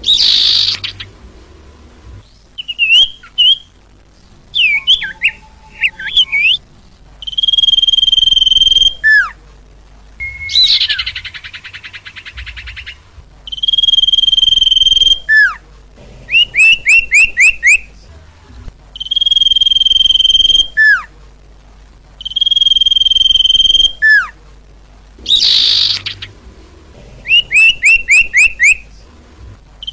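Sirtu bird singing loudly, the lure song for trapping: long steady high whistles alternate with quick runs of short upswept notes, sharp falling slurs and a few harsh rasping calls, in repeated phrases with short pauses between.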